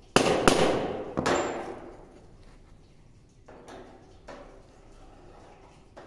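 Hammer striking a centre punch on a steel plate three times in the first second and a half, each blow ringing and dying away. A few seconds later there are fainter scrapes as a divider is set on the metal.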